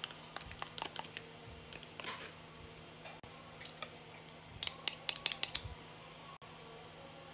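Small clicks and soft wet scrapes of yogurt being tipped and scraped out of a plastic tub onto raw chicken cubes in a glass bowl, then ginger-garlic paste added. A quick run of sharp clicks comes about five seconds in, over a faint steady hum.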